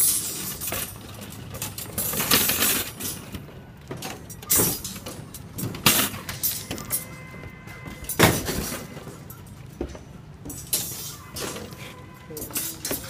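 Irregular clanks, knocks and scrapes of steel reinforcing bars being handled and set in place, with several sharper hits spaced a second or two apart.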